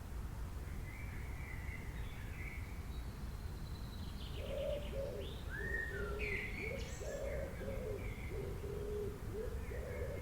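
Several birds chirping and calling over a steady low background hiss. About four seconds in, a run of low, repeated cooing notes joins the higher chirps.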